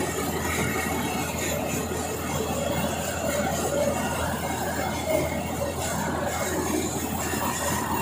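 Kubota PRO-888-GM half-feed combine harvester running steadily as it cuts standing rice: diesel engine hum with a steady high whine from the machinery.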